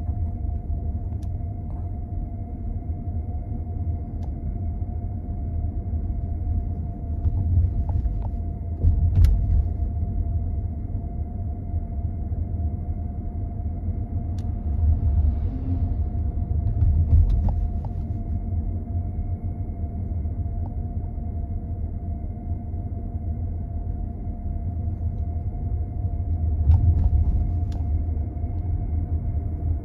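Car driving, heard from inside the cabin: a steady low rumble of engine and tyres on the road, with a thin steady hum over it and a few light clicks or knocks.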